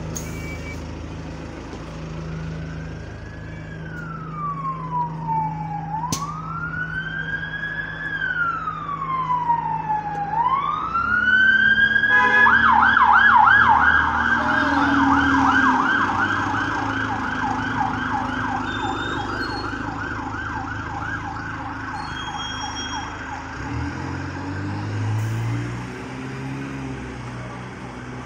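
Emergency vehicle siren sounding a slow wail, rising and falling in long sweeps, then about twelve seconds in switching to a fast yelp that dies away a couple of seconds before the end. A diesel bus engine runs underneath.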